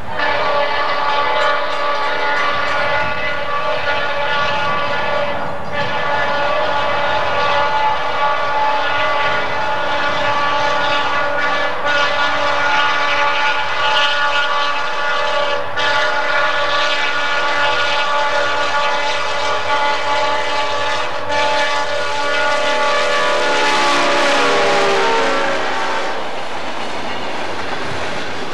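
Kansas City Southern diesel locomotive air horn sounding several long blasts, each broken off briefly. Near the end the chord drops in pitch as the locomotive passes and the horn stops, leaving the train rolling by with its wheels clattering over the rails.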